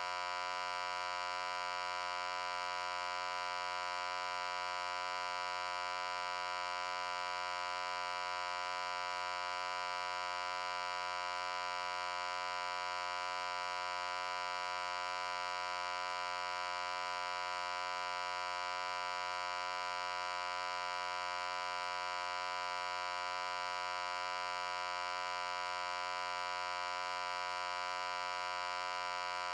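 A steady, unchanging electric-sounding hum: a dense, buzzy stack of tones held at one pitch without a break.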